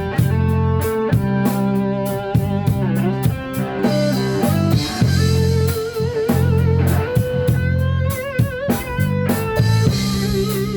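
Rock band playing an instrumental break: electric guitar lead over strummed guitar, bass guitar and drum kit with a steady cymbal beat. From about the middle, the lead guitar holds long notes with a wavering vibrato.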